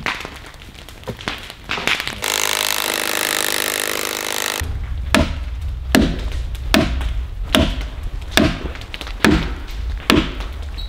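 Hammer driving a steel spike into a log: sharp metal-on-metal blows at an even pace, a little over one a second, through the second half. Before that, a steady loud mechanical noise lasts about two seconds.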